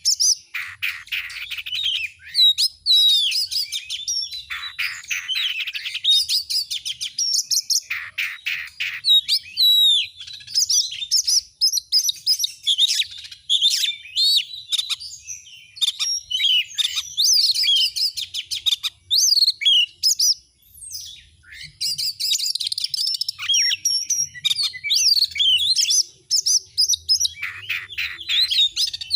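Oriental magpie-robin (kacer) singing without pause: a rich, varied song of quick whistled notes and chatter, broken by several bursts of fast rattling trills.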